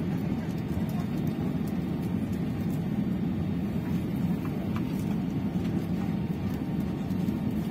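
Steady low rumble inside the cabin of an Airbus A320-214 taxiing after landing: its CFM56 engines near idle and the tyres rolling on the taxiway, with faint light ticks over it.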